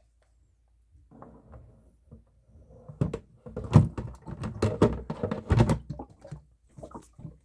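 Plastic humidifier water tank being handled and set onto its base: a soft rustle, then a run of hollow plastic knocks and thuds as the tank is fitted in place.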